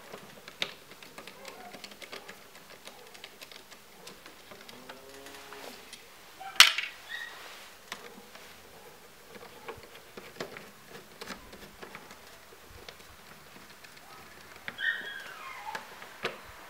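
Light clicks and ticks of a screwdriver working out the screws of a Fiat Grande Punto's plastic air-filter housing, with one sharper click about six and a half seconds in.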